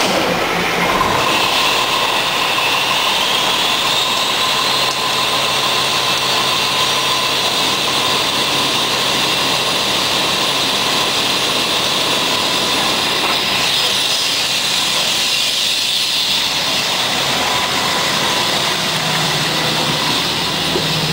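Fire engine running loud and steady, with a high whine that rises in pitch over the first few seconds and then holds.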